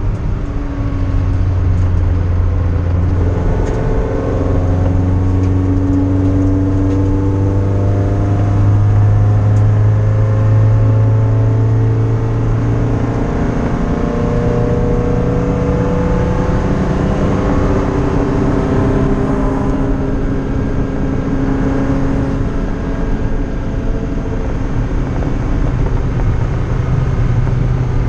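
MGF race car's engine heard from inside the cabin under racing load, its note climbing under acceleration and dropping back at each lift or gear change, over road and wind noise. The revs are held to about 6,000–7,000 rpm to spare the engine after a head-gasket scare.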